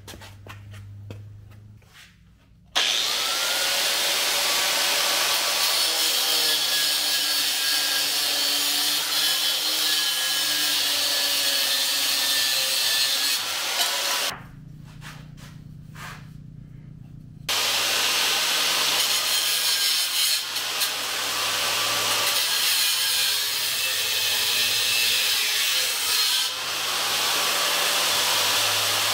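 A hand-held power tool running under load, its motor pitch wavering as it bites into the work; it starts a few seconds in, stops for about three seconds midway, then runs again.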